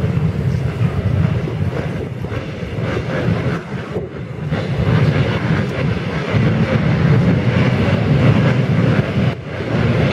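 A full field of motocross bikes revving their engines together behind the starting gate. The sound is loud and continuous, and it swells and dips without a break.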